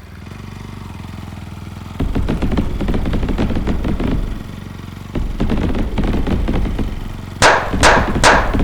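Small ultralight aircraft engine running, at a fast even beat, then revving up, easing off and revving again. Near the end come three sharp bangs about half a second apart, louder than the engine.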